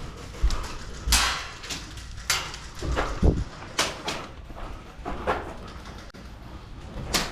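Airsoft gunfire: scattered single shots and BBs knocking against cover at irregular intervals, then a rapid string of shots starting right at the end.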